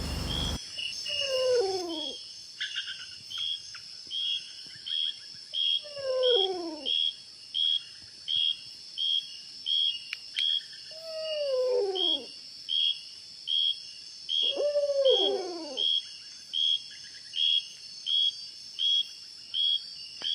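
Night insects shrill steadily with a regular chirp about three times every two seconds. Over them an unseen animal gives a wailing call that slides down in pitch, each about a second long, four times. This is the strange night sound heard beside the camp.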